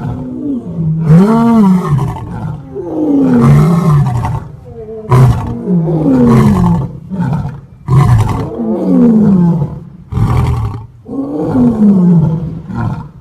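Lion roaring over and over: about seven deep roars in close succession, each one to two seconds long and mostly falling in pitch, with short breaks between them.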